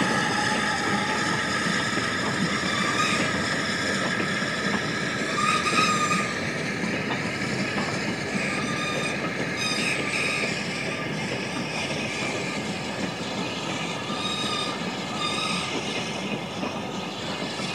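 Steam-hauled train of goods wagons and vans running along the line, a steady rattle of wheels and wagons with a thin metallic squeal running through it, stronger about five seconds in.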